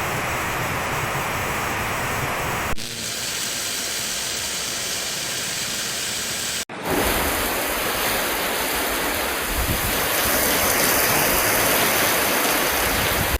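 Steady rushing of water, cut off and resumed abruptly twice, the last part the loudest.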